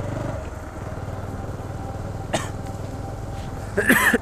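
Motorcycle engine running as the bike rides a dirt track, its note easing down just after the start. A sharp click about two and a half seconds in, and near the end a short, loud sound that wavers in pitch, louder than the engine.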